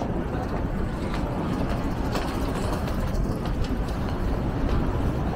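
Steady street ambience in a busy city district: a continuous low rumble of passing traffic, with scattered faint clicks.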